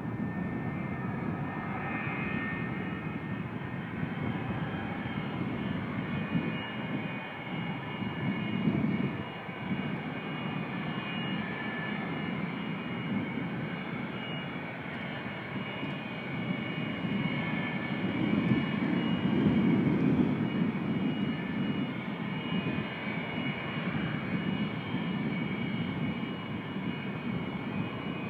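McDonnell Douglas MD-83 freighter's tail-mounted Pratt & Whitney JT8D-219 turbofans running at taxi power: a steady jet rumble with a whine of several high tones over it. The rumble swells twice, about eight seconds in and again around twenty seconds.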